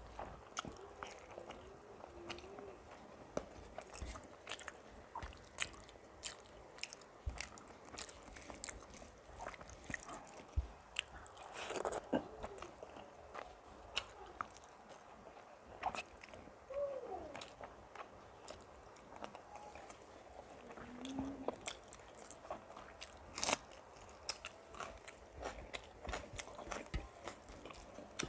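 Close-miked mouth eating sounds: a person chewing a meal of rice and fried vegetables, with frequent sharp crunches and wet mouth clicks at an uneven pace.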